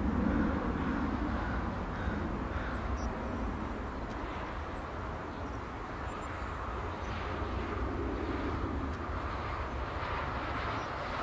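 Distant Boeing 747-8F's four GEnx turbofan engines running for takeoff: a steady rumble with a hiss of jet noise.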